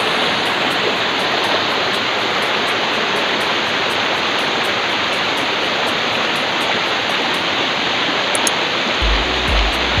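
Stream water rushing and splashing over rocks, a steady loud rush. Background music runs underneath, its low beat coming in near the end.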